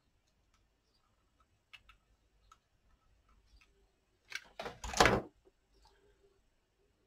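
Craft materials handled on a desk: a few faint taps and clicks, then a loud rustle lasting about a second, a little after four seconds in.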